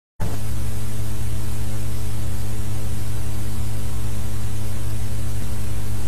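Loud, steady electrical hum of the mains-hum kind, with a layer of static hiss. It cuts in just after the start and holds unchanged.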